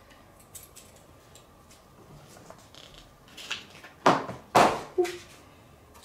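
Small metal magnetic clips clicking as they are handled, then two sharp clacks about half a second apart a little after four seconds in, as a magnetic clip snaps onto the metal board. A softer click follows.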